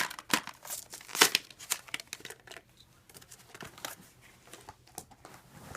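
Hot Wheels car packages being torn open: card tearing and plastic crinkling, with sharp crackles that are loudest in the first two seconds, then lighter.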